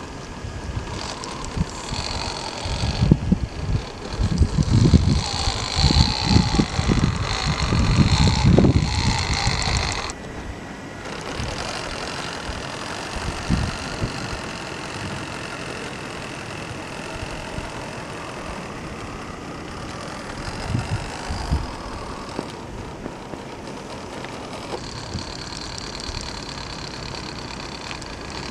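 Electric motor and gearbox of a micro-scale RC crawler whining as it crawls through snow, the pitch wavering with the throttle. Wind buffets the microphone with a low rumble for the first ten seconds or so, then it turns quieter.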